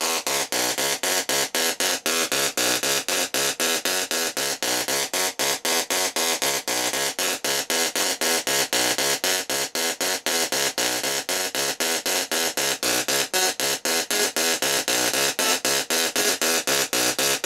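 Small solid-state Tesla coil, driven by a full bridge of IGBTs, playing a tune through its spark discharge: a buzzing, crackling electric tone broken into a quick run of short notes, about four a second, that change pitch.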